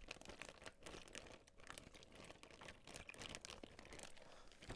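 Plastic freezer bag crinkling faintly in irregular crackles as it is handled and kneaded, working brine around the chicken wings inside.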